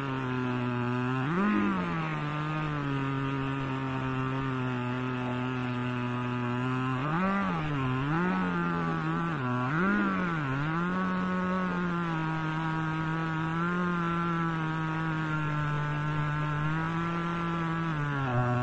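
Two-stroke chainsaw running at high throttle under load, ripping a log lengthwise in a homemade chainsaw-mill frame. Its pitch holds mostly steady, wavering and dipping briefly about a second and a half in and several times around the middle of the cut.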